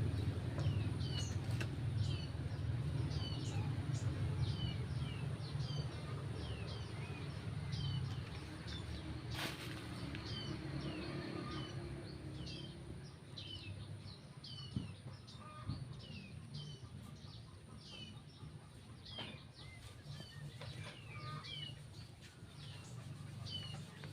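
Small birds chirping over and over, short falling chirps about two or three a second, above a low steady rumble that slowly fades.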